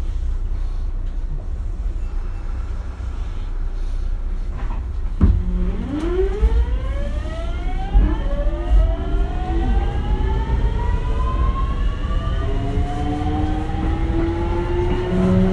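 Mitsubishi GTO-VVVF inverter of a Kintetsu 1420-series electric train pulling away. A low rumble while standing, a sharp clunk about five seconds in, then a chord of whining tones climbing in pitch as the train accelerates. The tones jump to a new set around eight seconds in and again near twelve seconds, as the inverter changes pulse mode.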